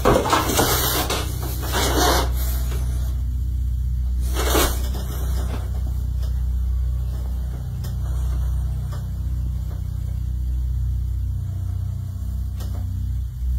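Phone microphone rubbing and scraping as the phone is handled and carried in the dark, strongest in the first two seconds and again briefly after about four seconds, over a steady low rumble.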